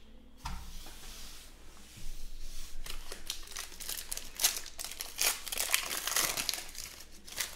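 A sealed trading-card pack's wrapper being torn open and crinkled by hand: a dense run of quick crackles that starts about two seconds in.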